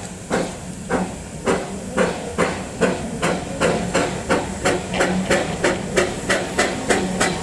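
Steam locomotive chuffing as it gets under way, the exhaust beats speeding up from about two to about three a second.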